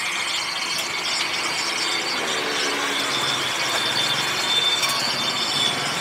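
Samosas deep-frying in a large iron kadai of hot oil, the oil sizzling and crackling steadily.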